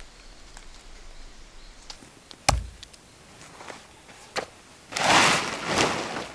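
A single sharp, heavy knock, a smaller click, then about a second of loud rustling near the end.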